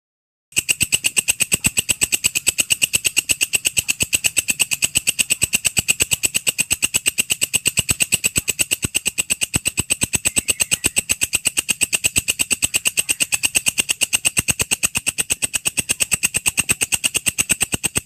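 Walang kecek (belalang kerik) insect calling: a fast, even, unbroken train of shrill chirps, starting abruptly about half a second in.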